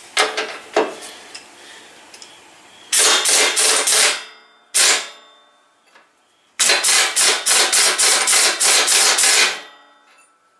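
Two metal clanks, then a cordless impact wrench hammering in bursts, about a second, a short one, then about three seconds, as it loosens the bolts holding the back end of a Grasshopper 126 mower.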